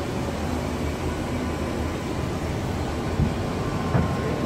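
Steady rushing cabin noise of an Airbus A330 flight deck on approach: airflow and air conditioning over the engines. Two brief low thumps land near the end.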